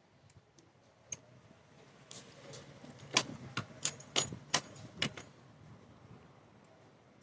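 Keys jangling and clicking while the scooter's ignition key is handled: a single click just after a second in, then a quick run of about seven sharp clicks and jingles over some three seconds.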